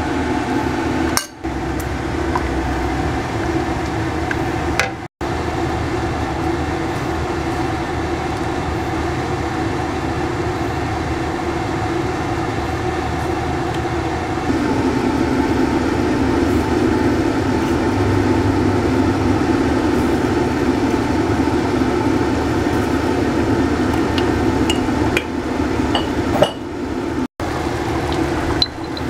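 Steady kitchen hum while a wok of curry cooks, with a few light clinks of utensils against the wok and bowl. The hum gets louder about halfway through.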